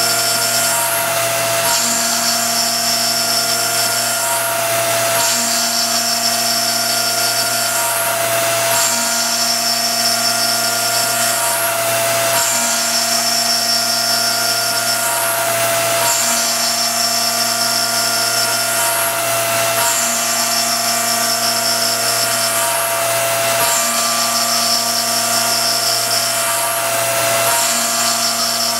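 RF45 CNC milling machine cutting a 1911 pistol slide with a small end mill, the spindle running steadily under cut. A whine from the machine drops out briefly and returns about every three and a half seconds as the toolpath repeats.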